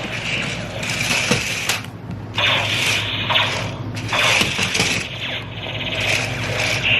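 Small electric motors and plastic gearboxes of toy remote-control laser tag tanks whirring as the tanks drive and turn, starting and stopping in bursts of about a second, with a few sharp clicks.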